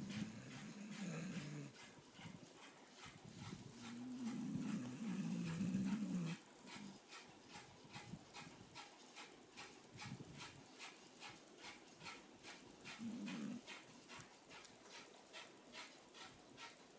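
Pit bull snoring in its sleep: low, wavering snores at uneven intervals, a short one at the start, the longest and loudest lasting about two seconds from about four seconds in, and a brief one near the end.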